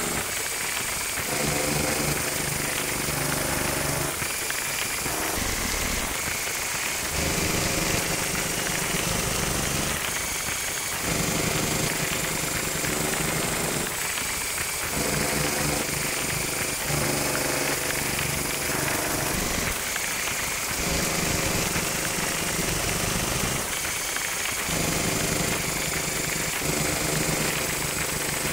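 Yamaha TG33 tone generator playing a creepy sound-design patch. A dense, noisy drone carries low pitched tones that drop away briefly about every five seconds, and thin whistling tones glide slowly upward high above.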